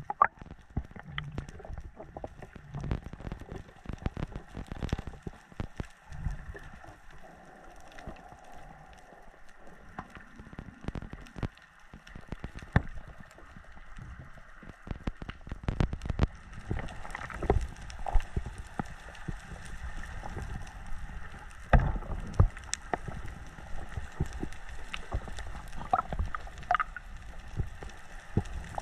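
Underwater ambience picked up by a submerged camera: a steady watery hiss full of irregular crackling clicks and muffled knocks, busier in the second half.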